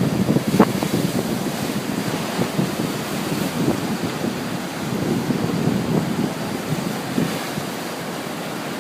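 Ocean surf washing onto a beach in a continuous rushing wash that swells and eases, with wind buffeting the microphone.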